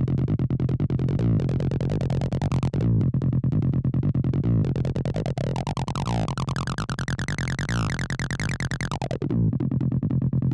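Acid-style electronic music: a synthesizer bassline plays a fast run of short repeated notes over a steady low pulse. About halfway in, its tone brightens steadily as the filter opens, then it turns dull again near the end.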